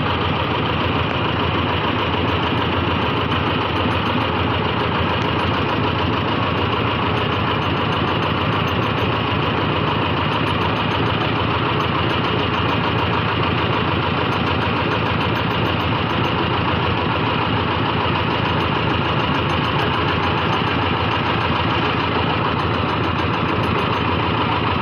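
Heavy crane's diesel engine running steadily at an even, unchanging level.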